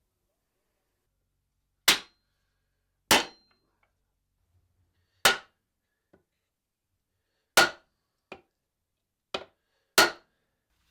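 Seven sharp strikes of a tool in the forge workshop, five loud and two lighter, irregularly spaced a second or two apart; the first two leave a brief high metallic ring.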